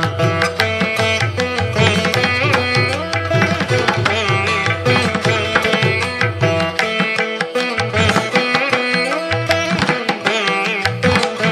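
Instrumental background music in an Indian classical style: a busy run of quick plucked-string notes over a hand-drum rhythm.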